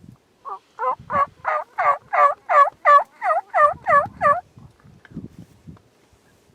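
Turkey calling: a loud run of about a dozen evenly spaced notes, roughly three a second, lasting about four seconds.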